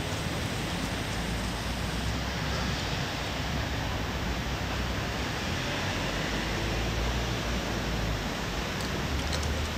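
Wind rushing over a phone's microphone: a steady noise with a low rumble.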